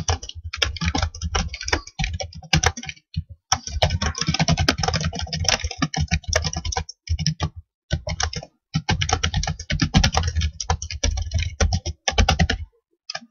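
Fast typing on a computer keyboard: a steady run of key clicks broken by a few short pauses, the longest near the end.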